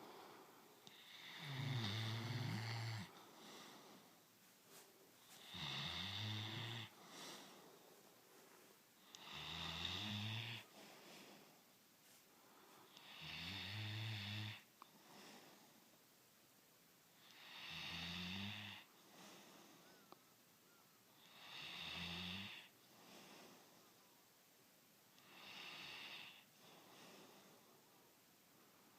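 A sleeping pet snoring, fairly faint: seven slow snores about four seconds apart, each a low rumble with a higher hiss on top.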